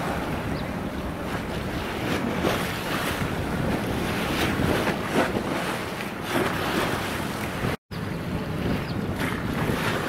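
Wind buffeting the microphone over the wash of sea water, rising and falling in irregular gusts. The sound drops out completely for an instant about three-quarters of the way in.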